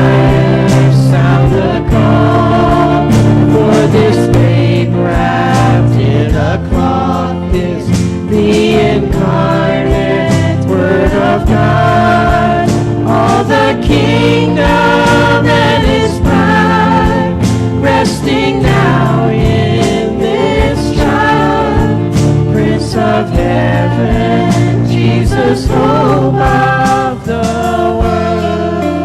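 Worship music: a group of voices singing a Christmas worship song together, with a band accompanying.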